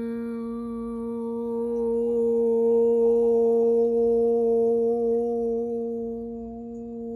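A woman's voice humming one long steady note in vocal toning, held at an unchanging pitch.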